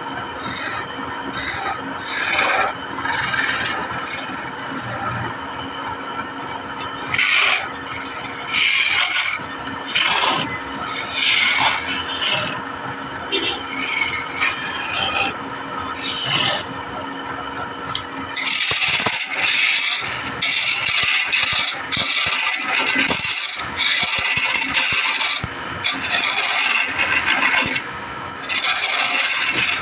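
Wood being worked by hand with an abrasive or scraping tool in repeated rasping strokes. The strokes are irregular at first, then settle into a steady rhythm of about one a second in the second half.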